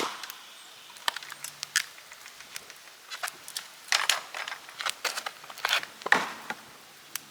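Bicycle tyres crunching over a gravel road, a string of irregular crackles and clicks, thickest around four and six seconds in.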